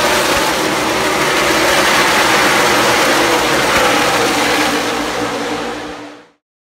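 A pack of NASCAR Cup stock cars running past at racing speed, their V8 engines blending into one loud, continuous engine noise. The sound fades out near the end.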